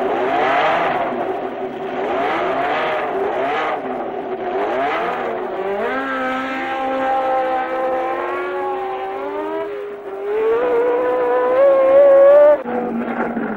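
Ford Cosworth DFV V8 Formula One engine revved in short throttle blips for the first few seconds. It then runs at a steady pitch that climbs slowly as the car accelerates, rises more sharply near the end and cuts off suddenly.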